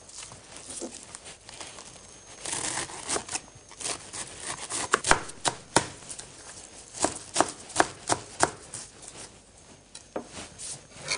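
Knife slicing a head of cabbage into thin shreds on a plastic cutting board: sharp cuts come in irregular runs with short pauses between them.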